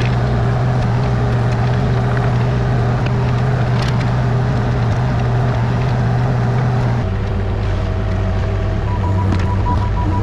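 An engine running steadily with a low drone, its speed dropping a step about seven seconds in.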